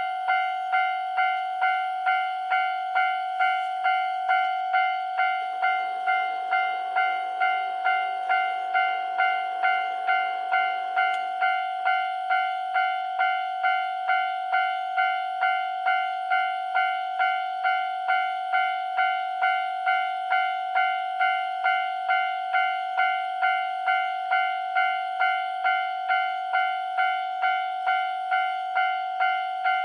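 Japanese railroad crossing alarm ringing its electronic bell tone over and over, just under twice a second and steady throughout, the signal that a train is approaching the level crossing.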